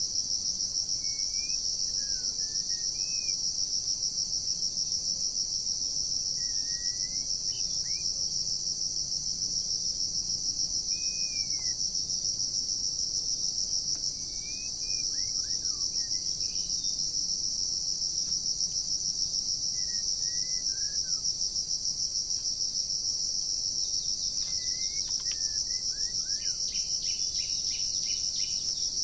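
A loud, steady high-pitched insect chorus. Over it a bird gives short whistled calls every few seconds, with a quick run of rattling notes near the end.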